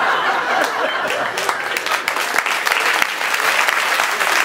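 Theatre audience laughing and applauding, the clapping growing denser after about a second.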